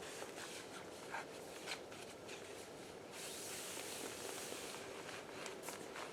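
Faint rustling and crackling of dry pine needles and brush being gathered and stepped on, with scattered light snaps and a denser rustle about halfway through.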